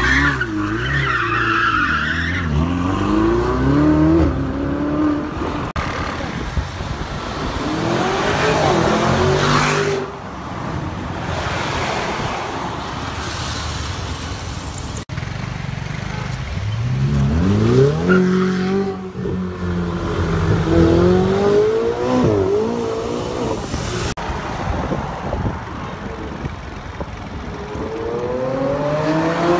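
Supercar engines accelerating hard in a run of short clips, each rise in pitch falling back at a gear change before climbing again.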